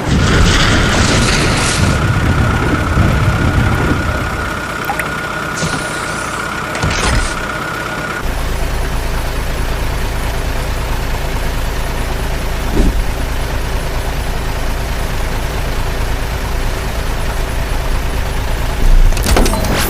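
Heavy diesel engine running steadily. For the first eight seconds a steady high whine sits over it, then a low, even drone carries on, with a few knocks near the end.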